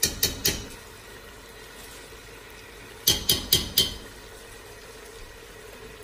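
A metal spoon knocking and scraping as tomato purée is spooned into a stainless-steel pressure cooker: three quick knocks at the start and four more about three seconds in. Meat and spices sizzle faintly in the pot underneath.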